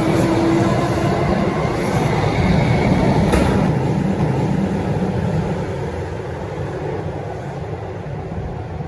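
EDI Comeng electric train pulling out of the platform: a steady low rumble of wheels and running gear that fades over the last few seconds as it draws away, with a single sharp click a little past three seconds in.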